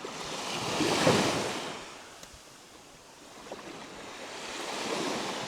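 Waves washing up on a sandy beach, two swells of surf rising and falling, the first about a second in and the second near the end.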